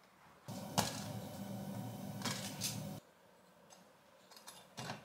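Serrated bread knife sawing through an English muffin on a plate: a few rasping strokes that stop abruptly about three seconds in. Then only faint light scrapes and clicks of a knife spreading on the muffin halves.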